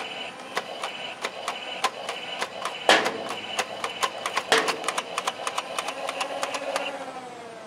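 Nerf Revoltinator's flywheel motors spinning with a steady whine while darts are fired in a rapid string of clicks, about three or four a second, with two louder knocks among them. Near the end the motors wind down and the whine fades.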